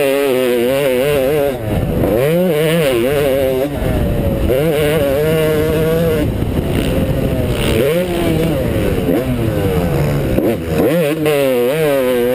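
Motocross dirt bike engine heard from the rider's helmet, revving up and dropping back over and over as the throttle is opened and closed through gears, corners and jumps, with wind rumble on the microphone.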